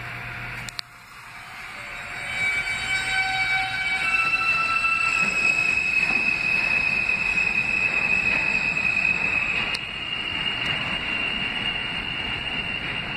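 NYC subway R160A train running out of the station: steady rumble of wheels on rail that swells over the first couple of seconds, with a few stepped whining tones and then a long, steady high-pitched wheel squeal.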